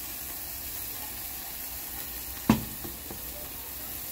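Red tomato salsa sizzling in a hot pan of sautéed nopales and onion as it is stirred in, with one sharp knock about two and a half seconds in.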